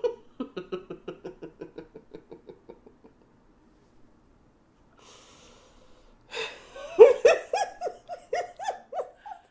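A woman laughing: a run of quick, soft chuckles that fades out over about three seconds, an intake of breath, then a louder burst of laughter near the end.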